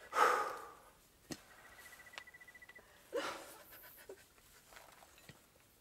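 A person's heavy, gasping breaths: a loud one at the start and another about three seconds later, with a single sharp click between them.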